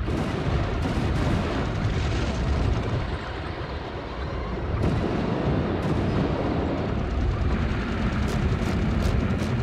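Industrial noise music: a dense, low rumbling roar with a crashing, explosion-like texture. It eases slightly about three seconds in, swells back, and a run of quick sharp clicks joins it near the end.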